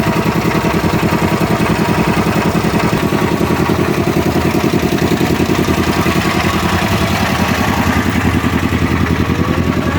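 Motorboat engine running steadily, with a fast, even chugging.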